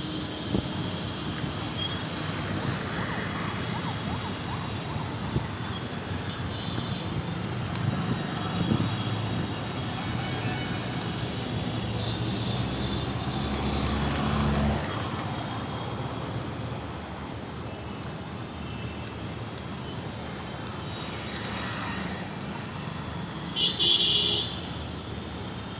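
Road traffic noise heard from a moving vehicle: steady engine and tyre rumble with a few short car-horn toots. A deeper rumble builds and cuts off suddenly about halfway through, and a loud horn blast sounds near the end.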